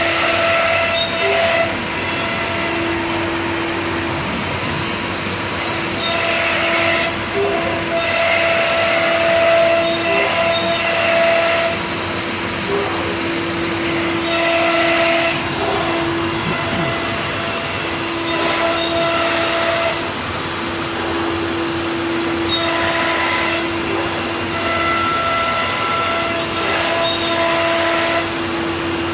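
C.R. Onsrud 381G18CD CNC router running, its spindle holding one steady whine. A rougher, hissing layer swells and fades every few seconds as the machine works.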